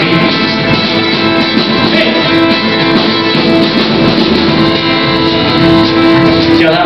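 Live band playing an instrumental passage of a song: strummed acoustic guitars with fiddle, upright bass and drums, and a long held note through the middle.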